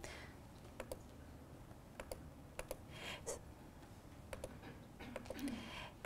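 Faint, scattered clicks at a laptop, about a dozen of them, some coming in quick pairs, as points are plotted on a computer audiogram.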